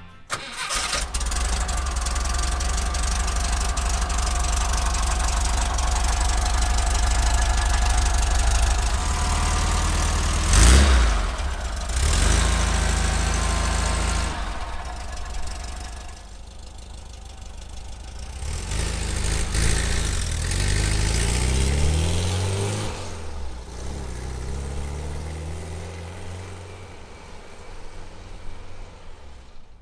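1965 Volkswagen Type 2 bus's air-cooled 1600cc flat-four engine idling steadily, with a loud brief burst about ten seconds in. Later it pulls away, rising in pitch through the gears as it accelerates, then fades as the bus drives off.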